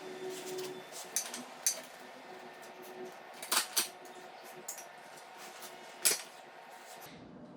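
Metal motorcycle parts and tools clinking and knocking as the rear axle and wheel hardware are handled: a handful of sharp metallic clinks, the loudest a pair about three and a half seconds in and another about six seconds in.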